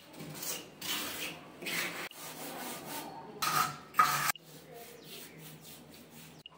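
A mason's trowel and wooden straightedge scraping over cement plaster on a door-frame moulding, in short repeated strokes. Two louder strokes come about three and a half seconds in, then the scraping goes quieter.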